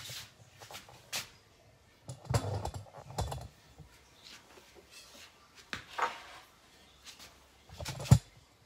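Scattered light knocks and clicks of objects being handled, with the sharpest knock near the end, as the kitchen knife is taken up from the wooden cutting board.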